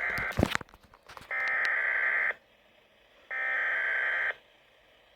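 Weather radio SAME alert header: bursts of digital data tones about a second long, the tail of one at the start, then two more about a second apart, with a short crackle of static after the first. The header marks the start of an alert broadcast.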